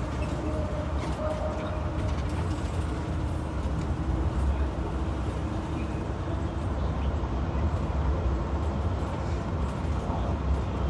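A 2022 IC CE gasoline school bus running: a steady low rumble with a faint whine over it. The bus has an exhaust leak from a faulty catalytic converter.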